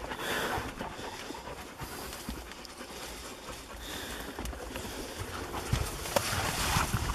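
Hunting dog panting close by.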